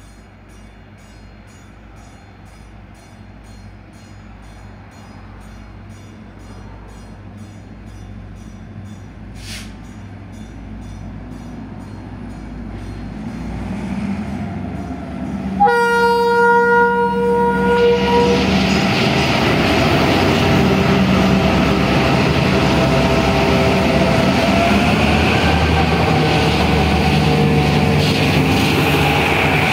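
Freight train hauled by two TCDD DE 22000-class diesel-electric locomotives, its engine sound growing steadily louder as it approaches. About halfway through the lead locomotive gives one horn blast of a few seconds, a chord of several notes. The locomotives then run past close by, loud engine and rail noise.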